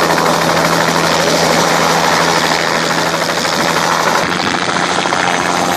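Light helicopter running on the ground, its engine and two-blade main rotor turning; the sound is loud and steady, with a constant low hum.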